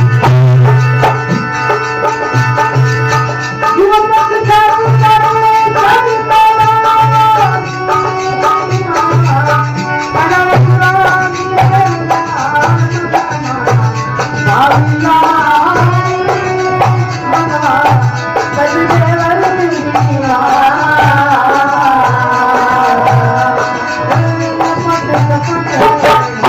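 Marwari folk bhajan music: a hand drum keeps a steady, driving beat under a melody line that bends and slides in pitch.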